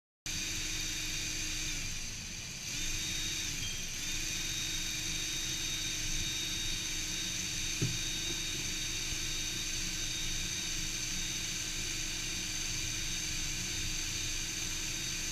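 Electric drill running steadily as it bores through a metal strap, with a motor whine. The whine sags and recovers twice in the first four seconds, and there is a sharp click about eight seconds in.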